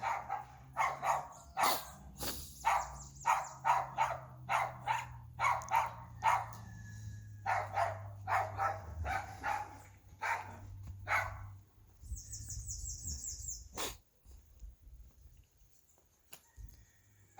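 A dog barking over and over, about two barks a second, stopping about eleven seconds in. Near the end a brief high, rapid trill and a single sharp click.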